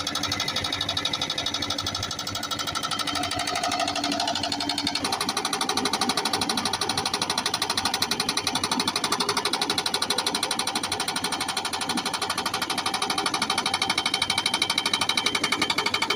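A rock-breaking hammer pounding stone in a rapid, steady rhythm, its sound shifting about five seconds in.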